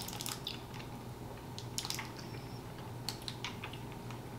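Small hard candies being unwrapped and sucked: faint, scattered clicks and crinkles from a plastic candy wrapper being picked open, with small wet mouth sounds.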